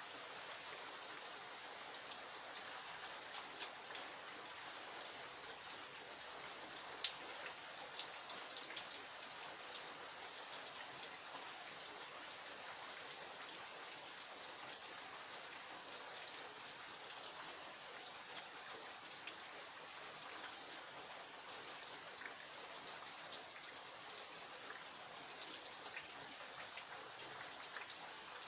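Steady rain falling, with many individual drops tapping sharply and irregularly close by.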